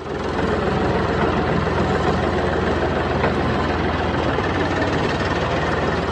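Tractor engine running steadily with a rapid, even beat, starting abruptly.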